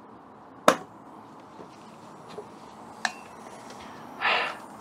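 A gas quick-disconnect fitting snapping onto the fermenter's gas-in post with one sharp click, a lighter click about two seconds later, then a short hiss near the end.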